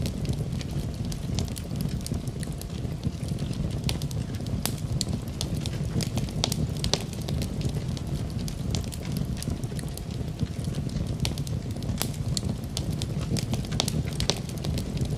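Fireplace fire crackling: irregular sharp pops and snaps, several a second, over a steady low rush.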